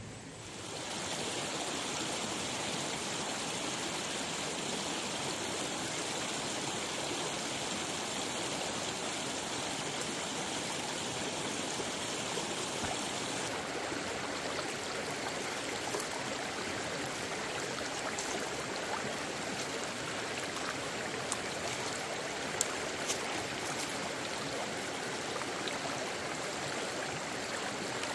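Steady rushing of flowing stream water, fading in about a second in, with a few faint light clicks in the second half.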